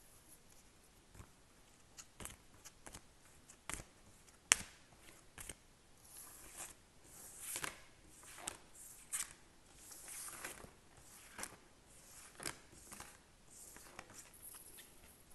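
Oracle cards being picked up off a table and stacked: a scatter of light clicks and taps, the sharpest about four and a half seconds in, then a run of soft sliding swishes as the cards are swept together.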